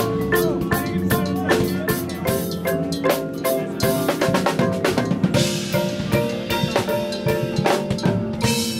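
A percussion front ensemble playing: mallets on marimbas and vibraphones, with drum-kit and cymbal hits. It is a busy, continuous passage of many quick strikes over ringing keyboard notes.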